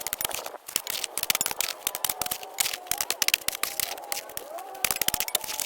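Steel shovel digging a post hole in dry soil: dense, irregular scraping and crunching of dirt and grit.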